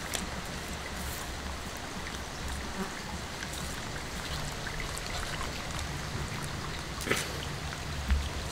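Wet chilli masala paste being ground on a stone grinding slab with a stone roller (ammi kallu): a steady wet scraping, with a light click near the end.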